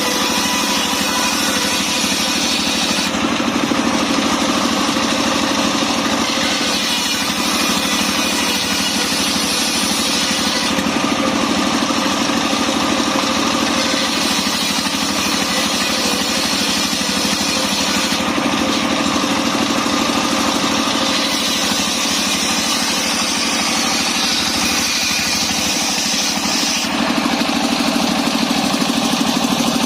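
Engine-driven mobile circular sawmill running steadily, its higher hiss changing every several seconds as the saw works through a log.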